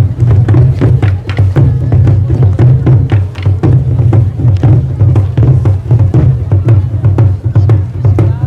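Loud music with a heavy bass beat and busy percussion.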